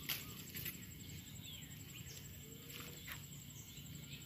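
Faint outdoor swamp ambience with a few short bird chirps scattered through it and a few soft rustles.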